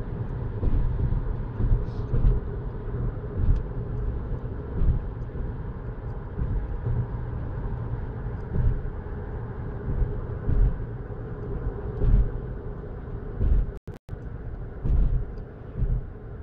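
Road noise inside a moving car's cabin: a steady low rumble of engine and tyres with occasional low bumps. The sound drops out for a split second near the end.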